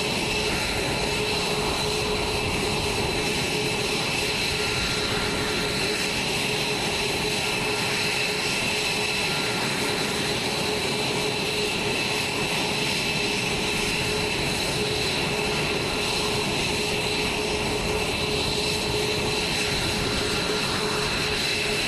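F-22 Raptor's twin Pratt & Whitney F119 turbofan engines running steadily on the ground: an even rushing noise with a steady high turbine whine over it.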